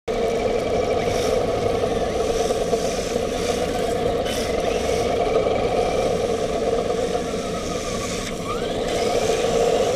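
Radio-controlled drift car running across a concrete floor, heard from a camera mounted on the car: a steady hum from its drivetrain and tyres.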